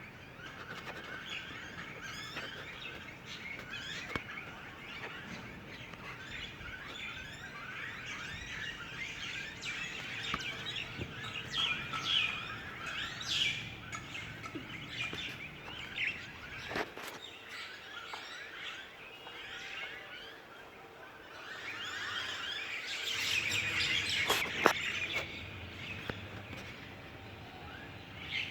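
Many small birds chirping together: a dense chorus of short, overlapping calls that grows louder about halfway through and again near the end.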